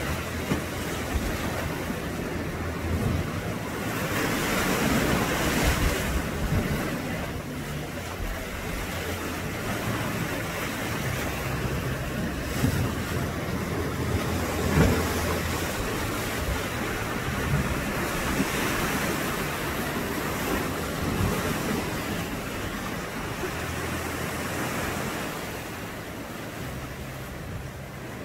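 Sea waves washing over and around a low rock ledge, swelling louder twice, about four seconds in and again near the twenty-second mark. Wind buffets the microphone with a low rumble.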